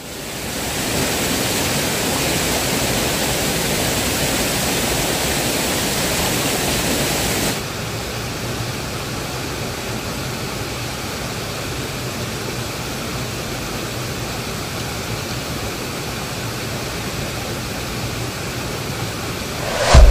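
Water rushing down a small rocky waterfall into a pool, a steady hiss. It is louder and brighter for the first seven or eight seconds, then drops suddenly to a steadier, duller rush. A loud thump comes near the end.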